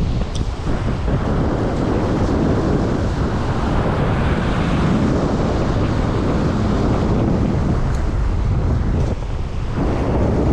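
Strong storm wind buffeting the microphone, a dense steady rush of noise heaviest in the low end, easing briefly about nine seconds in.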